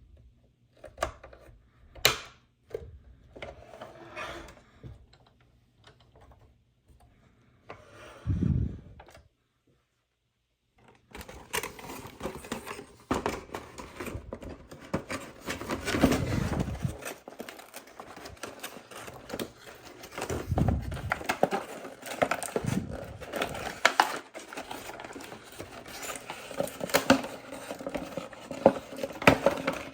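Plastic toys being handled: scattered clicks, taps and clatter, sparse at first, then a short silent break about nine seconds in, after which the clicking and rattling come thick and fast with a few dull thuds.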